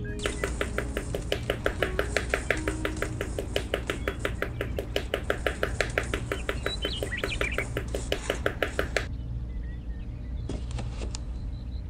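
A rapid, even run of sharp tapping clicks that stops suddenly about nine seconds in, with a short burst of a few more taps near the end, over a low steady hum.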